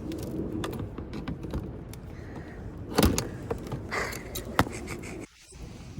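Knocks and clicks from a cat's box being handled and opened, with a sharp knock about three seconds in and a smaller one a little later, over a low rumble of handling noise.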